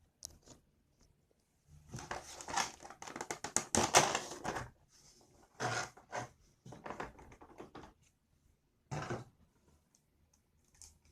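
Cardboard and plastic packaging being handled and opened by hand: irregular rustling, crinkling and scraping, busiest about two to four and a half seconds in, with shorter bursts and clicks later.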